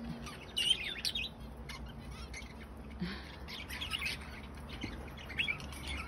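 Budgerigars chirping and twittering in scattered short high chirps, with busier flurries about half a second in and again from about three to four and a half seconds.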